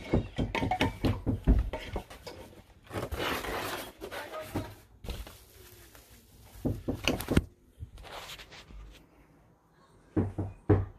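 Handling noises from unpacking a drain auger: an irregular run of knocks and clunks, a rustling stretch about three seconds in, then more scattered knocks.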